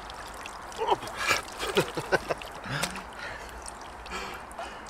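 Water splashing and sloshing in a quick cluster of short strokes as a large carp is handled in the water for release, mixed with a few brief voice sounds.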